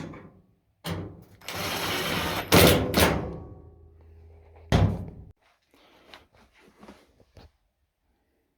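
Thuds and clunks from a Samsung front-load dryer's door, with a low hum between them that cuts off at a last thud about five seconds in.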